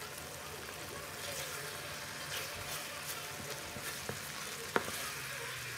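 Chopped pineapple cooking in sugar syrup in a wok, sizzling and crackling as the liquid boils down toward dry. A wooden spoon stirs it in the second half, with one sharp click against the pan near the end.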